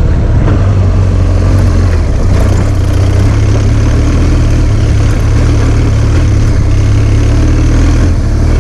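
Adventure motorcycle engine running steadily while riding, its low drone constant.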